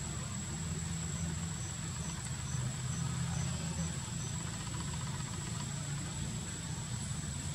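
A steady low engine-like hum, with a thin steady high whine over it and a run of eight short, high pips, about two a second, starting about a second in.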